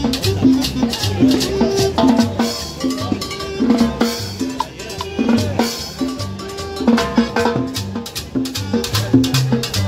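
Live street band playing upbeat Latin dance music, its drums and percussion keeping a steady beat over a bass line.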